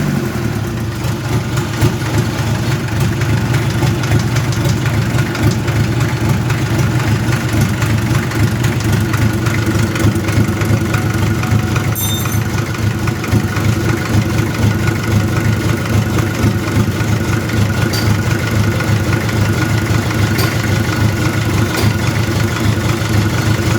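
Mitsubishi PS100 diesel engine running steadily on a test run.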